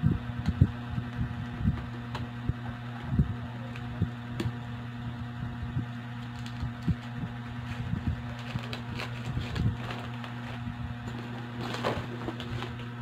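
Handling noise from a quilted leather handbag with a chain strap being worked at its zipper and lifted: irregular soft thumps and a few clicks, over a steady low hum.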